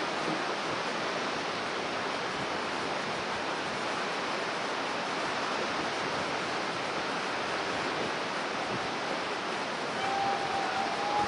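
Rough storm surf breaking and washing over rocks: a steady rushing noise with no letup. A brief faint high tone comes in near the end.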